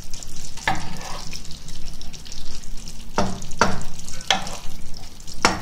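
A metal spoon knocking and scraping in a frying pan as meatballs and sauce are scooped out onto a plate, with about five sharp clinks, the loudest about three seconds in and near the end.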